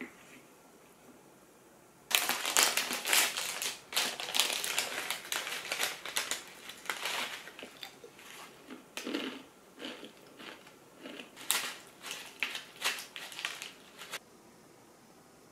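A silvery plastic snack pouch crinkling as it is picked up, opened and handled, then granola rattling out of it into a yogurt cup. The crinkling starts about two seconds in, is densest for the first few seconds and thins to scattered crackles before stopping near the end.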